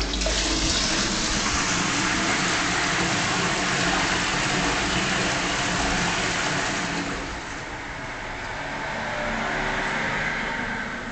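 Public toilet flushing: a loud, even rush of water that eases about seven seconds in, swells again, and dies down near the end.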